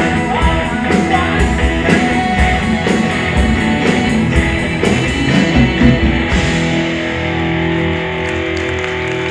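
A rock band playing live, electric guitar over drums; about six seconds in the drums stop and held chords ring on.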